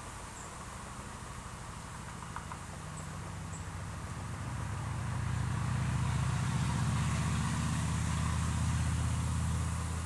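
A low motor hum grows louder from about four seconds in, holds steady, then stops suddenly near the end, over a steady outdoor hiss.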